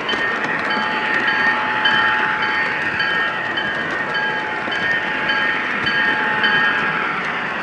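3-rail O scale model diesel train running on its track: steady rolling and motor noise from the wheels and rails, with a held tone and a ringing tone that repeats a little under twice a second from the locomotive's sound system, like its bell.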